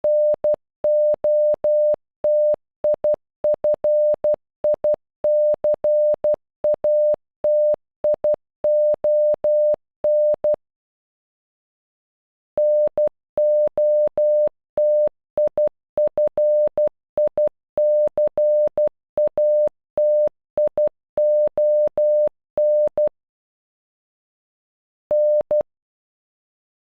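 Morse code for "NOTIFICATION" (-. --- - .. ..-. .. -.-. .- - .. --- -.) sent as a pure electronic beep tone keyed into short dots and long dashes. It plays through twice, with a pause of about two seconds between, and a lone beep comes after another pause near the end.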